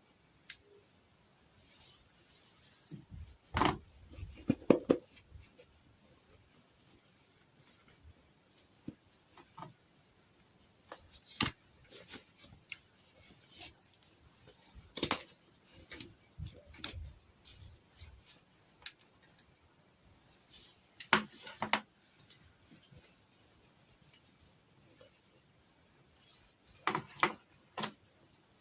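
Toy dolls, playset pieces and packaging being handled close up: sharp clicks, taps and short rustles that come in clusters a few seconds apart.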